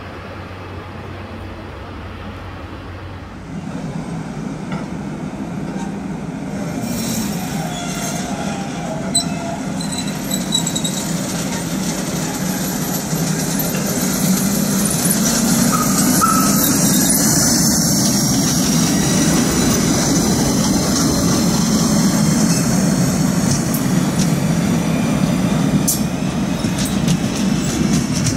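SBB Re 421 electric locomotive and its passenger coaches running past close by, the train noise growing louder a few seconds in and then holding steady. A high, slowly falling metallic squeal from the wheels joins it around the middle.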